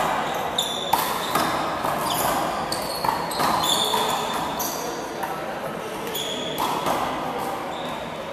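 Handball rally in a large, echoing hall: a small rubber handball slapped by hand and smacking off the wall again and again, with sharp high sneaker squeaks on the court floor between hits.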